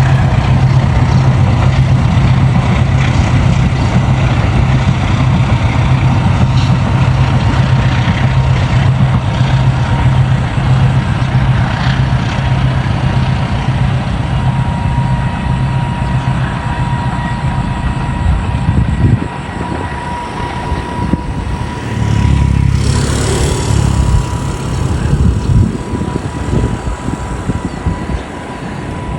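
Diesel-electric locomotive of the Cakrabuana train with its engine running hard, a steady low drone and a faint steady high tone. The drone drops off about two-thirds of the way in and comes back a few seconds later with a brief rush of hiss.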